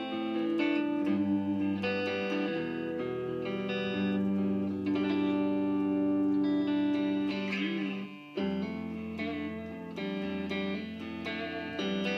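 Electric guitar playing held chords and single notes that ring for a second or more each, with a brief break about eight seconds in.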